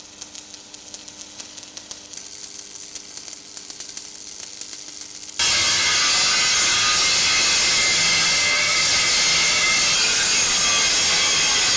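Rapid light clicking, then about five seconds in a power tool starts suddenly and runs loud and steady. This is metal-working noise in a vehicle repair workshop.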